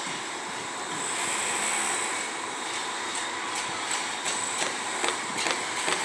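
Steady outdoor background noise around a building site, an even hiss-like rumble with no clear machine rhythm, with a few faint clicks in the second half.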